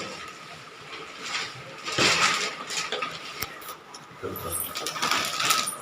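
Washing machine hoses being handled and fitted: scattered rustles and light knocks, with a sharp click about midway, over a faint steady high hum.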